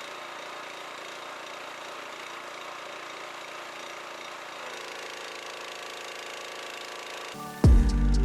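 Kärcher gas pressure washer's small engine running steadily, with a steady hum of even tones joining about halfway through. Loud music cuts in near the end.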